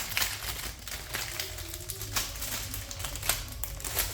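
Plastic packaging crinkling and tearing as a motherboard I/O shield is unwrapped: an irregular run of crackles and clicks.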